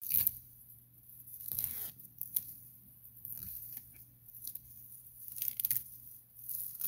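Tall grass and weeds being yanked out by hand: a series of short ripping and rustling bursts as stems tear, about six separate pulls.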